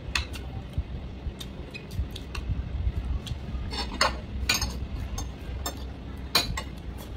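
A metal spoon clinking and scraping against ceramic plates and bowls as food is scooped up, in irregular clinks, a few louder ones around the middle and near the end, over a low steady hum.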